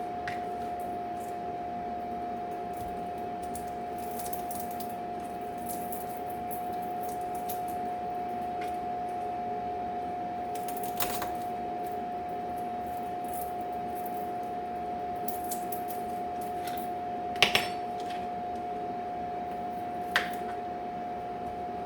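Steady hum of a running kitchen appliance at one constant pitch, with a few sharp clinks of pots or utensils: one about halfway through, a quick pair a few seconds later and one more near the end.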